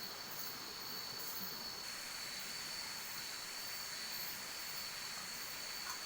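Heavy rain falling steadily, an even hiss, with a thin steady high-pitched tone running through it.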